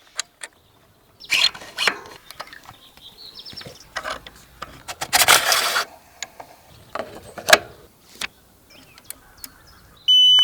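Scattered mechanical clicks, knocks and short rustling bursts of e-bike parts being handled and fitted. A steady electronic beep starts near the end.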